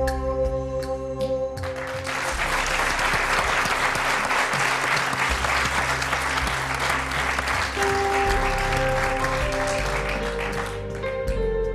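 An audience applauding over soft instrumental music. The clapping starts about two seconds in and dies away near the end while the music plays on.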